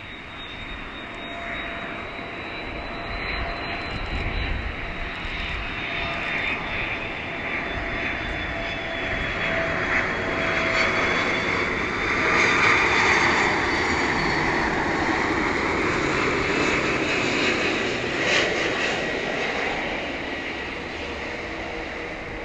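Twin-jet engines of a China Airlines Airbus A330-300 on landing approach. A steady engine whine and rush grows louder as the aircraft comes in, is loudest about halfway through, then slowly fades, its whining tones sliding down in pitch as it passes.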